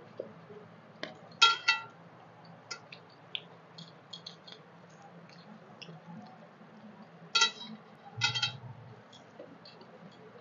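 Fingers mixing and scooping rice on stainless steel plates, giving many small squishy clicks. Four loud metallic clinks ring out as the steel plates are struck, two about a second and a half in and two more past seven seconds.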